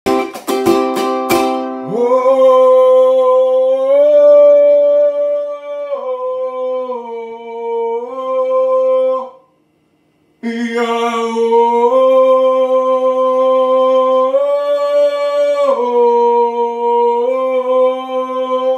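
A few quick plucked-string notes, then a voice singing a slow tune of long held notes that step from pitch to pitch. The singing stops for about a second midway, then carries on.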